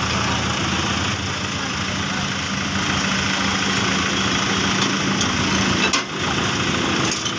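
Vehicle engine idling steadily, with a brief break about six seconds in.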